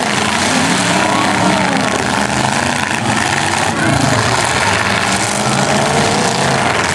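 Several demolition derby cars' engines revving at once, their pitches rising and falling over each other in a dense, loud wash of noise.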